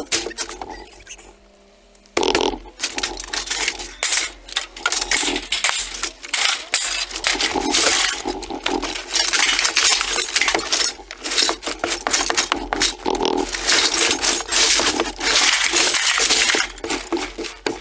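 Scraps of sheet steel clattering and clinking as a push broom shoves them across the trailer floor and out the back, with the broom scraping over the boards. A short lull about a second in, then a continuous run of metal clanks and scrapes.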